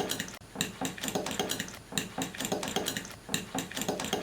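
A utensil stirring an egg and chopped-vegetable omelette mixture in a bowl, with rapid, uneven clicking as it knocks against the bowl, several times a second.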